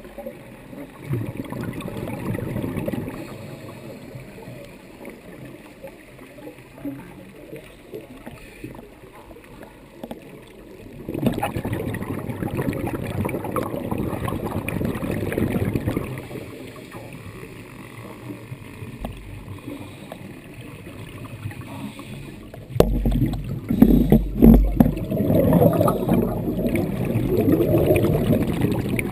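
Scuba diver's exhaled bubbles from the regulator, heard underwater: three long rushes of bubbling noise roughly ten seconds apart, the last and loudest with low thumps, and quieter breathing noise in between.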